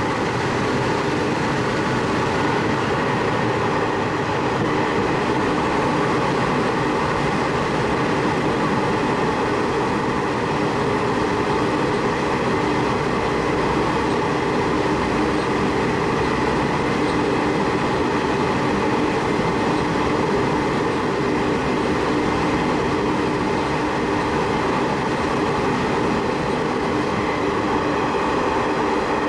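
Diesel railcar of the Sanriku Railway running along the line, heard from inside the car: a steady drone of engine and wheels on rails, unchanging throughout.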